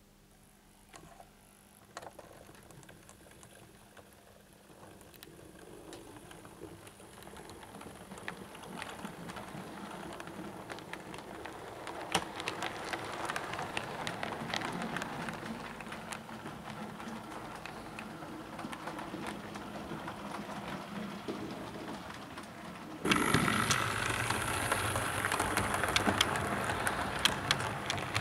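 Model 4MT Standard tank locomotive running on track: a rattling whirr of its motor and gears with frequent clicks of wheels over rail joints, growing louder over the first dozen seconds, then suddenly louder near the end.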